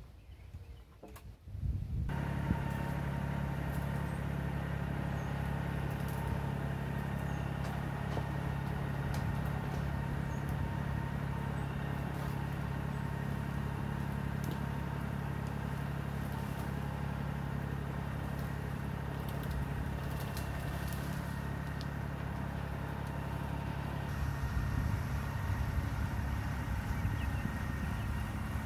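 Compact tractor engine running steadily, starting abruptly about two seconds in. Near the end its sound grows louder and less even.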